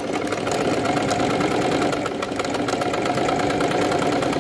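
Brother PX-110 electric sewing machine running at a steady speed, sewing a straight stitch through fabric, with a rapid, even ticking of the needle strokes over the motor hum.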